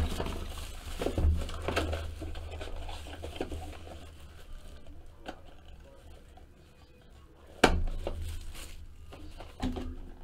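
Cardboard trading-card box being handled and opened by hand: rustling, scraping and short taps, with one sharp knock a little under eight seconds in as the box is set down.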